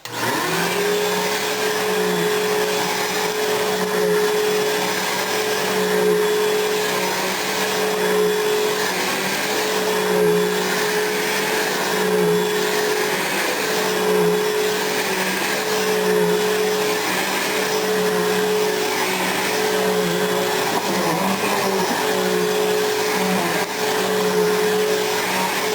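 Bissell vacuum cleaner switched on and running steadily over carpet. Its motor pitch dips briefly every one to two seconds as the nozzle is worked back and forth.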